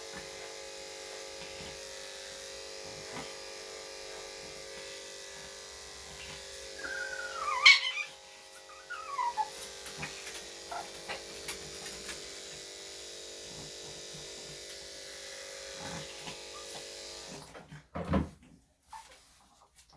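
Electric dog-grooming clippers humming steadily while shaving a Shih-Tzu's face, switched off a couple of seconds before the end. About eight seconds in, the dog gives a short whine with sliding pitch, resisting the clipping.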